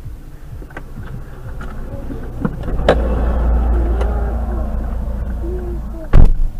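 Steady low road and engine rumble heard inside a car through a dashcam, swelling about three seconds in, then one very loud, short bang near the end as cars collide on the road ahead.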